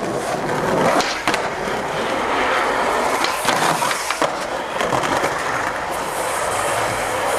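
Skateboard wheels rolling on rough street pavement with a steady gritty rumble, broken by a few sharp clacks of the board.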